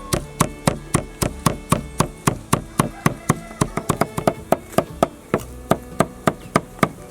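A knife or cleaver chopping on a wooden board, with even, sharp strikes at about four a second.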